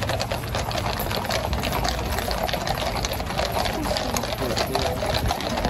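Many horses' hooves clattering quickly and irregularly on the road as a column of mounted cavalry trots past, over a steady hubbub of the watching crowd.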